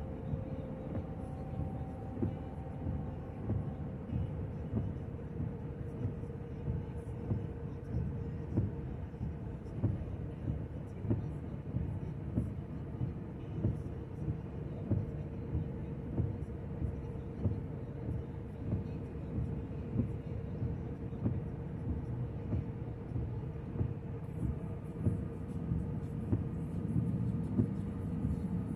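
Road noise inside a moving car: a steady low rumble with a faint steady hum and soft regular thumps about once a second.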